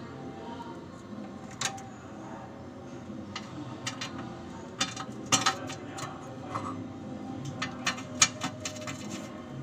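Scattered sharp clicks and taps, irregularly spaced and growing more frequent in the second half, over a low steady hum.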